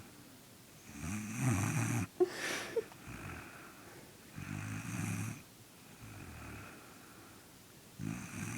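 A sleeping boy snoring: three loud snores about three and a half seconds apart, with softer breaths between them. Two short sharp clicks come just after the first snore.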